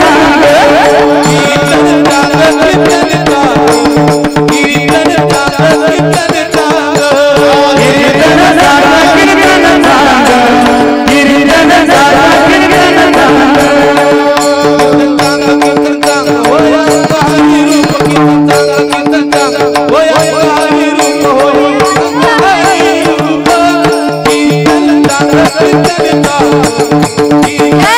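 Warkari kirtan music: a man sings a devotional chant into a microphone while clashing a pair of small hand cymbals (tal) in rhythm, with a hand drum and a steady drone of held notes underneath.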